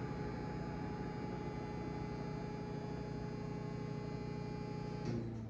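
LeBlond heavy-duty lathe running with its straight-cut gears and 10 hp motor, a steady machine hum with a whine of several steady tones, heard through a tripod touching the lathe's chip pan. About five seconds in there is a click and the sound changes to a lower steady hum.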